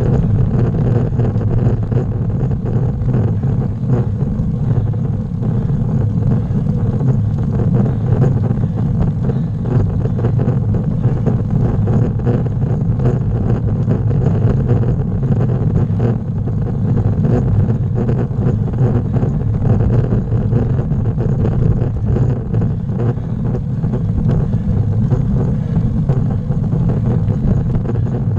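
Steady low road and wind noise picked up by a camera mounted on a bicycle riding a paved road, with no breaks or separate events.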